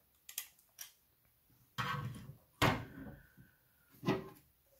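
Computer expansion cards being handled and set down on a wooden tabletop: a couple of light clicks, then several knocks and scrapes, the loudest about two and a half seconds in.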